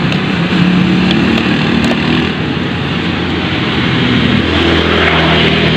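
A motor vehicle engine running steadily, its low hum shifting slightly in pitch a little past the middle.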